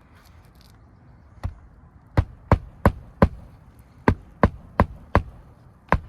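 A hammer driving roofing nails into a replacement asphalt shingle: sharp blows in runs of about four, roughly three a second, with short pauses between runs.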